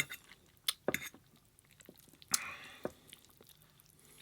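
Close-miked wet chewing and mouth clicks from a person eating: a few sharp clicks in the first second, and the loudest sound a brief noisy smack a little over two seconds in.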